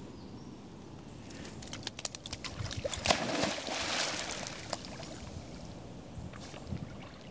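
A spaniel leaping off a stone ledge into a river: a run of sharp clicks and scuffs, then a loud splash about three seconds in and a second or so of churning water as it swims off.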